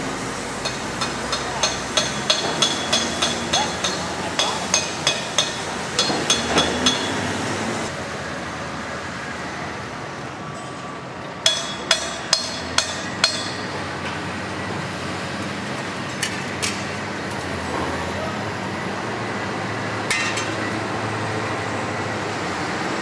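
Hammering on metal, sharp ringing strikes at about three a second through the first seven seconds. A second run of five strikes comes about halfway, with a few single strikes later, over a steady background rumble.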